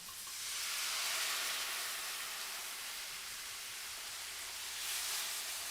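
Hot pan sizzling and hissing as liquid is poured in to deglaze it; the hiss swells about half a second in and again near the end.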